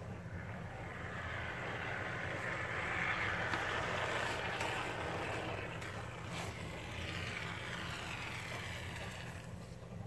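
A can of expanding polyurethane spray foam hissing as a bead is dispensed through its nozzle. The hiss swells in the middle and fades out near the end, over a steady low hum.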